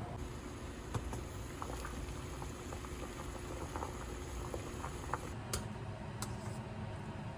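A pot of liquid boiling on the stove, with small bubbles popping irregularly. There are a few sharper clicks near the end.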